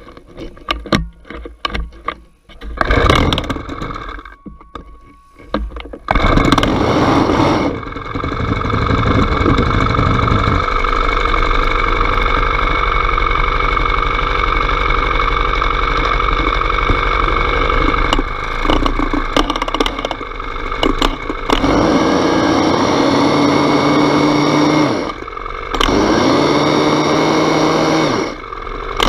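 Small petrol engine of a powered rotary bristle brush being started: a few seconds of knocks and short bursts, then the engine catches about six seconds in and runs steadily at high speed as the brush scrubs block paving. Near the end the revs drop and pick up again a few times.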